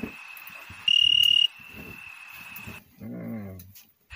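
Cricket chirping: a steady high trill with a loud pulsing burst lasting about half a second, about a second in. Around three seconds in there is a short, low, wavering whine lasting under a second.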